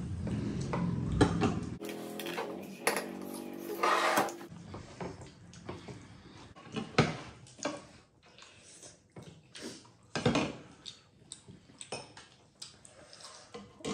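A metal ladle clinking against a ceramic serving bowl and plates as curry is served, with scattered small clicks of eating at the table. A short steady tone sounds from about two to four seconds in.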